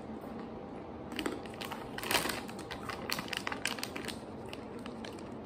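Crunchy imo kenpi (fried, sugar-glazed sweet potato sticks) being chewed: a run of crisp crackling crunches, loudest about two seconds in.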